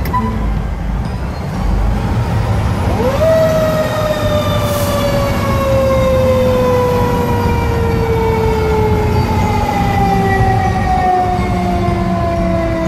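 A fire engine's siren heard from inside the cab, winding up quickly about three seconds in and then slowly winding down over the following ten seconds, over the low rumble of the truck's engine.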